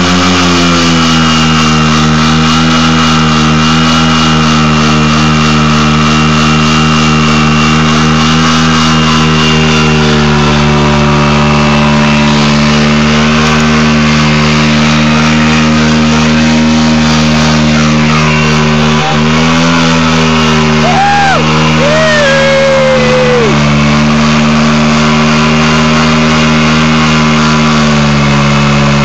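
150cc scooter engine held at high revs while the rear tyre spins in a burnout, running steadily with small dips and rises in pitch. A few brief squealing glides come about three quarters of the way through.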